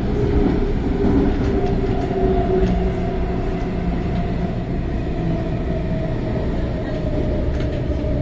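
Cabin noise of a CAF Tung Chung line metro train running: steady rumble with a motor whine that slowly falls in pitch as the train slows toward a station.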